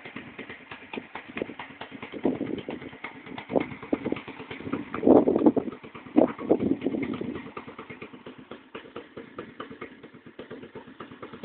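Irregular crunching and clicking of footsteps on gravelly sand and handling of the phone, with two louder gusts of wind on the microphone about five and six seconds in.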